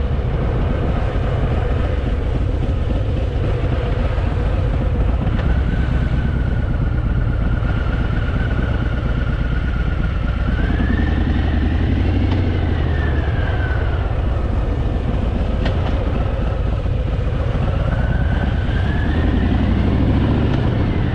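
Harley-Davidson Fat Boy's V-twin engine running on a steep downhill ride, its pitch rising and falling twice, around the middle and near the end.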